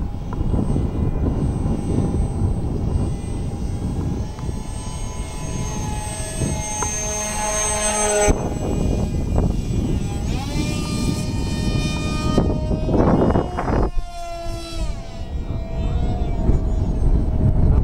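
Electric motor and propeller of a small foam RC jet whining overhead, its pitch shifting up and down several times with a couple of falling glides. Wind buffets the microphone underneath.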